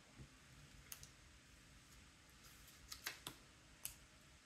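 Faint, sharp clicks of small plastic Lego pieces being handled and pressed together: a pair about a second in, a quick cluster around three seconds, and one more near the end.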